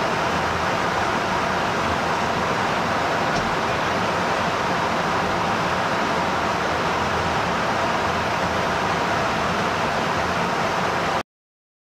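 Steady rushing noise of a refueling tanker in flight, engines and airflow heard from inside the boom operator's station. It cuts off abruptly near the end.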